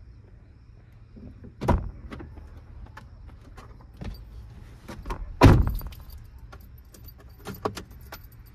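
Someone getting into a Suzuki hatchback: scattered clicks and knocks with keys jingling. There is a knock just under two seconds in, and the loudest sound is a heavy thump about five and a half seconds in as the driver's door is shut.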